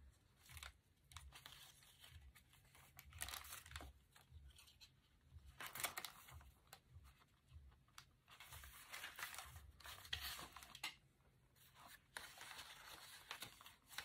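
Faint rustling of folded paper pages being leafed through and shuffled by hand, in irregular soft strokes.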